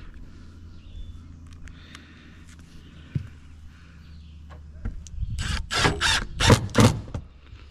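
An engine running steadily with a low hum. About five seconds in come five loud, short rushing bursts, roughly three a second.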